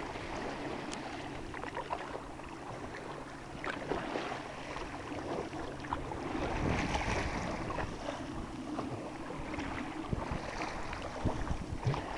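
Paddle strokes and water splashing from a Sevylor K2 Pointer inflatable kayak under way, with short irregular splashes over a steady wash of water and wind on the microphone.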